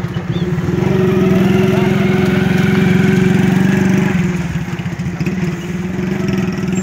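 An engine running steadily close by, a loud, even, pulsing hum that eases off a little about four seconds in.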